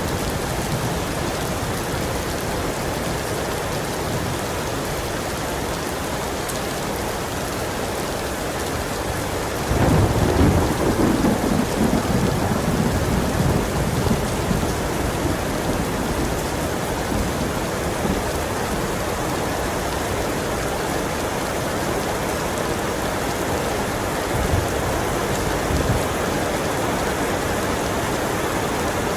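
Heavy rain falling steadily, with a rumble of thunder that starts suddenly about a third of the way in and slowly fades over several seconds.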